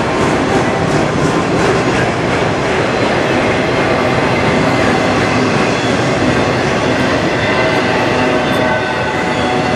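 Freight train of autorack cars rolling past: a steady, loud rumble of steel wheels on the rails with some rattling and clatter from the cars.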